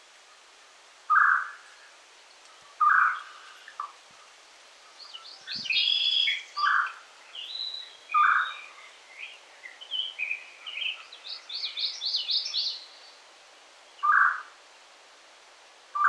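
Songbirds calling over the steady rush of a small stream: a loud short call repeats six times, every two seconds or so, while a second bird sings a quick run of high notes through the middle.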